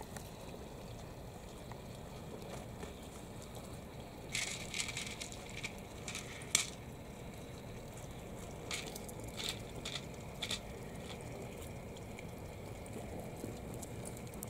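Pond turtles at feeding time on a gravel floor: two clusters of sharp crunching clicks, one about four seconds in and another around nine to ten seconds, over a steady low background.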